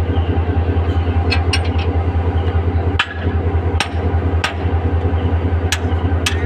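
A 1500 hp diesel locomotive's engine idling with a steady, evenly pulsing low hum, while a hammer strikes the metal coupling gear in about nine sharp clanks: a quick cluster about a second and a half in, then single blows spread through the rest, as the locomotive is uncoupled.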